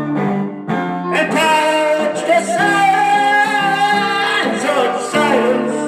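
Music: guitar chords under long, held melody notes that waver slightly in pitch, from a singing voice or lead instrument.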